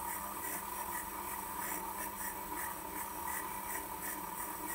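Dremel rotary tool running steadily with a high whine, its bit worked against the steel teeth of a gearbox gear to clean out dirt and rust, with a light scratching stroke repeating two or three times a second.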